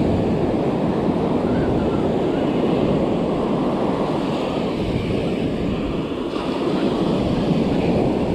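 Ocean surf breaking and washing up the beach, a steady rushing noise mixed with wind on the microphone, easing slightly about six seconds in.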